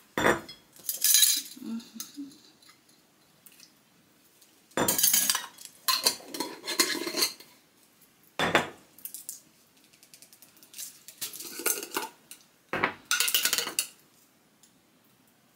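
A glass jar and a spoon being handled, with clinks and scrapes in several short bursts that stop about 14 seconds in.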